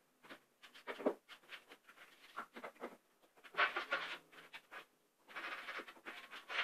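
Light, irregular taps, clicks and scrapes of hands handling a wall cabinet and its hardware, with denser scratchy rustling about three and a half seconds in and again near the end.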